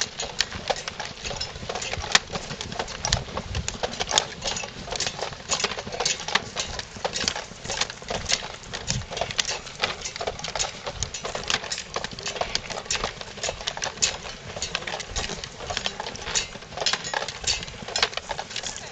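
Footsteps of a group walking on a dirt path, with gear rattling and clinking on their backpacks: a dense run of irregular clicks and knocks, several a second.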